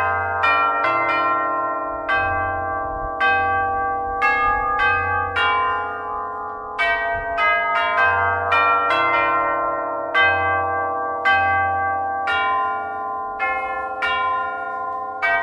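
Tubular church bells struck one note at a time, playing a slow hymn melody; each note rings on and overlaps the next.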